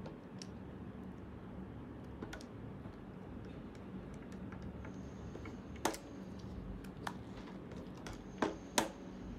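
Light plastic clicks and taps as parts of an Escura camera's plastic body and mounting plate are handled and pressed into place. Four sharper clicks come in the second half, two of them close together near the end.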